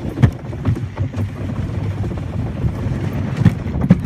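Dog sled gliding over snow behind a running dog team: a steady low rumble from the runners, with wind buffeting the microphone and a few sharp knocks as the sled jolts.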